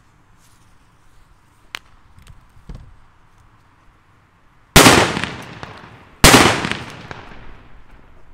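Two Hua Liang 'Super Böller' flash-powder petards going off about a second and a half apart. Each is a sharp, very loud bang that echoes as it fades over about a second. The second bang is as loud as the first.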